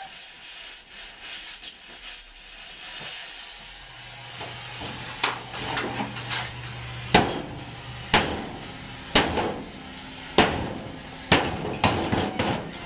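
Hammer striking steel plate, a sharp knock with a short ring roughly once a second from about five seconds in, after a quieter start.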